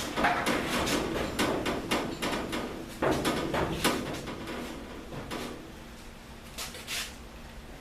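Clunks and rattles of a rolling shop hoist carrying a truck cab, its wheels rattling as it is pushed. They come thick for about the first four seconds, then thin out to a few scattered knocks over a faint steady hum.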